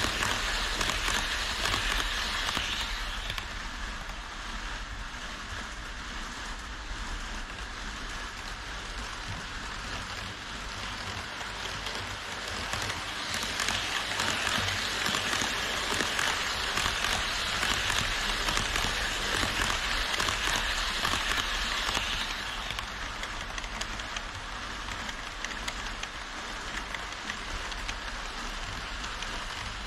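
HO-scale model trains, an E5 Shinkansen set and a container freight train, rolling along plastic viaduct track: a steady rolling hiss of small metal wheels on rail, louder for the first few seconds and again for several seconds in the middle as cars pass close.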